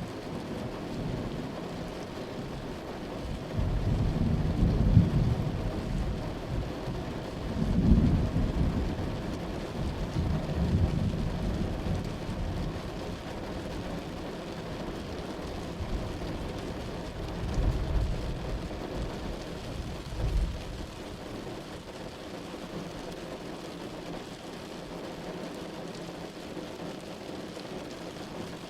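Steady rain with rolling thunder: long low rumbles swell and fade several times, the loudest about five and eight seconds in, then the thunder dies away near the end, leaving the rain.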